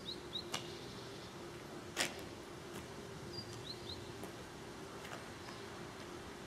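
Outdoor ambience: a small bird giving short high chirps, in pairs near the start and again about three and a half seconds in, with a few sharp clicks, the loudest about two seconds in, over a faint steady hum.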